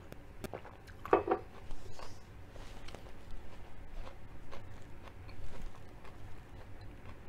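Close-up eating and drinking sounds: a sip and swallow from a mug about a second in, then soft chewing with wet mouth clicks and lip smacks.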